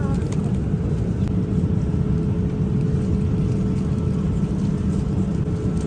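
Airliner cabin noise in flight: a steady low drone with a faint constant hum above it.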